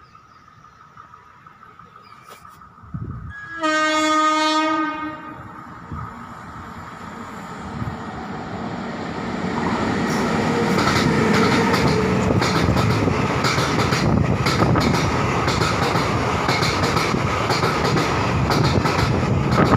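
Indian electric locomotive sounding one horn blast of about a second and a half, then the passenger train approaching and passing close by. Its rumble grows steadily louder, and the coaches' wheels clatter rapidly over the rail joints.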